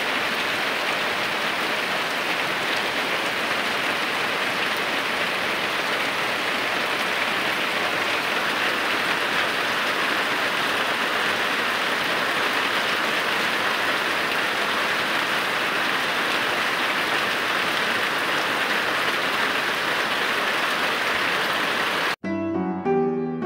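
Rain falling steadily onto standing water and wet ground, an even hiss of many drops. Near the end it cuts off abruptly and piano music begins.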